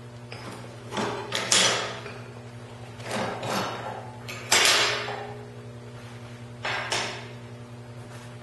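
Steel clamp and workpieces knocking against a steel vise and jig as they are handled, about six separate clanks with a short ring, over a steady electrical hum.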